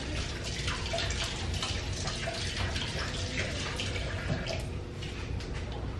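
Water running from a tap and splashing, with many small irregular drips and spatters over a steady hiss.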